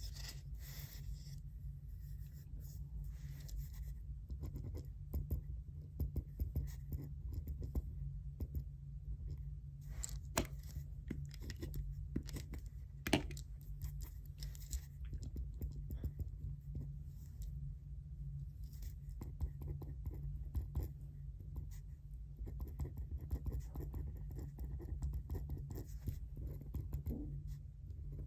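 Pen scratching on paper as someone writes, with scattered small taps and one sharper click about thirteen seconds in, over a steady low hum.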